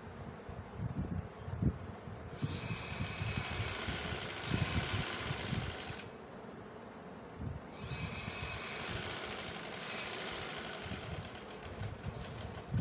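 Sewing machine stitching through cotton fabric in two runs, starting about two seconds in and stopping for about a second and a half near the middle.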